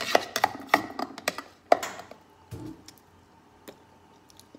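A plastic spoon scraping and tapping against the sides of a plastic blender container as thick dip is stirred and scooped: a quick run of clicks and knocks for about two seconds, then only a few scattered ticks.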